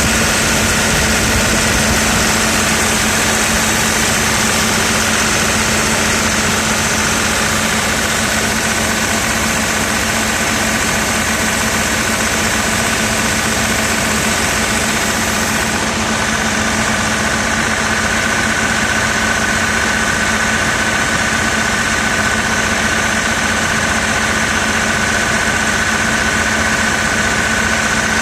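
Excavator diesel engine idling steadily, with a constant high whine over the low running note.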